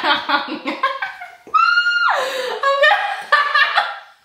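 A woman laughing in quick giggling bursts, with a high-pitched squeal about one and a half seconds in that drops sharply in pitch, then more laughter that fades near the end.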